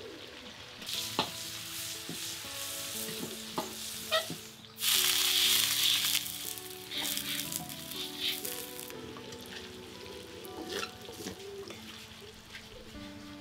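Chicken pieces frying in hot oil in a wok, with a steady sizzle and a few sharp spatula taps against the pan. About five seconds in, a loud burst of sizzling lasts just over a second as oil is poured into a hot wok.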